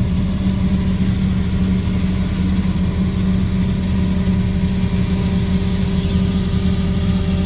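Engine of a heavy work machine running steadily at a constant speed.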